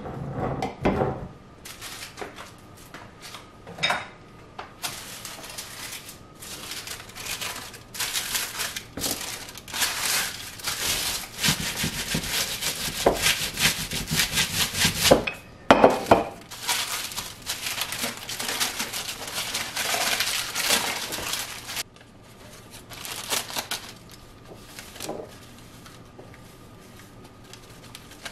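Kitchen items being handled: dishes and other things knocking and clinking as they are moved and set down, with two long stretches of scraping and rubbing in the middle.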